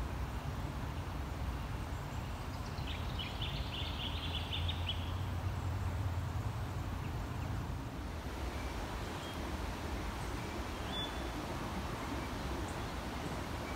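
Steady low outdoor rumble. A bird gives a rapid high trill about three seconds in, lasting around two seconds, and a few faint short chirps follow later.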